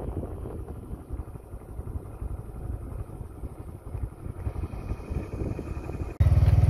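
A motorbike running along a bumpy dirt track, with a low, uneven rumble of wind on the microphone. A little over six seconds in, the engine hum suddenly becomes much louder and steady.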